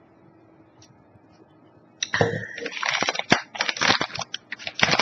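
Plastic chip bag being handled: a burst of loud crinkling and crackling starts suddenly about two seconds in and lasts about three seconds.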